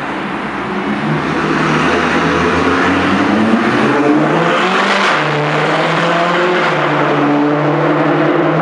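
Ferrari California's V8 through a Novitec Rosso exhaust, revving up over the first few seconds to a loud peak about five seconds in, then holding a steady lower pitch.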